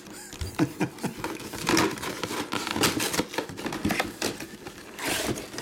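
Thin cardboard box being torn apart by hand and a clear plastic display case handled: a steady run of crackles, clicks and rustles, with a longer tearing rasp near the end.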